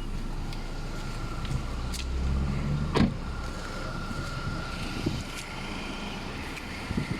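BMW X1 (E84) running, with a steady low engine hum, a few sharp clicks and a faint steady high tone.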